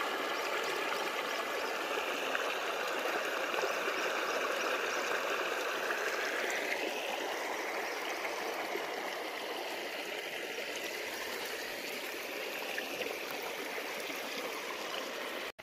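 Shallow stream running over rocks and stones: a steady rushing and gurgling of water that cuts off abruptly at the end.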